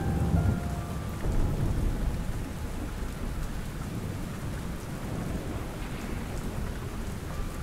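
Steady rain with a low roll of thunder that is strongest in the first second or so and then fades, leaving an even rainfall hiss.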